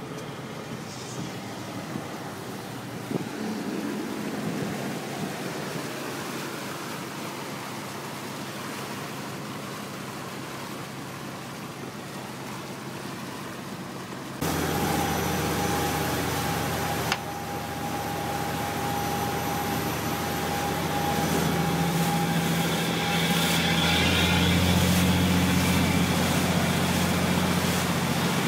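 Wind and rushing water on a moving boat. About halfway in, the sound changes abruptly to a louder, steady boat engine hum over churning wake, which grows louder near the end.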